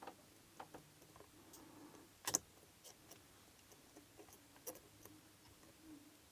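Faint, scattered small metallic clicks of a hook pick and tension tool working the pin stack of a 5-pin challenge lock, with one sharper click a little over two seconds in.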